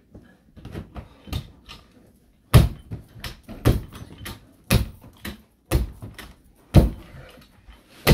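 Rubber mallet pounding carpet onto stair steps: a few light knocks, then heavy thuds about once a second from a couple of seconds in.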